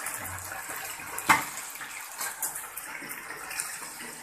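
Chicken skin deep-frying in hot oil in a saucepan: a steady sizzle and bubbling, with one sharp pop a little over a second in.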